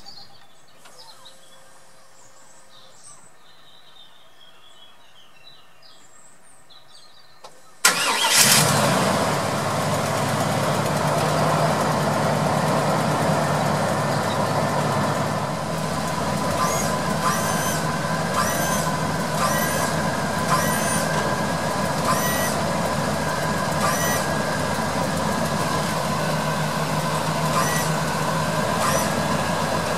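A motor on the motorhome starts abruptly about eight seconds in and keeps running steadily, with a constant whine and faint high chirps repeating about once a second.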